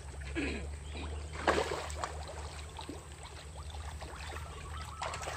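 Shallow pond water splashing and sloshing as people wade and handle fish in a drained fish pond, with the sharpest splash about a second and a half in, over a steady low hum.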